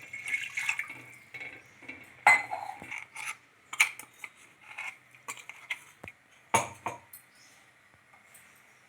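Kitchen utensils clinking and knocking against a cooking pot, with scattered sharp clanks; the loudest come about two, four and six and a half seconds in.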